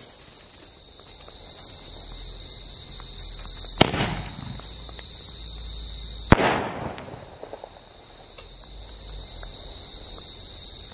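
Ajanta Ben 10 multi-shot sky shot firework: two sharp bangs about two and a half seconds apart, with a few faint crackles after the second. Crickets chirp steadily underneath.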